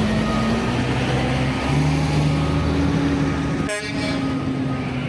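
Heavy vehicle engine running steadily, its pitch stepping up a little partway through, with a reversing beeper beeping faintly.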